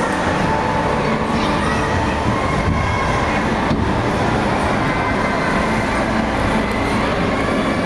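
Steady rumbling background noise of an indoor ice rink, with no clear breaks.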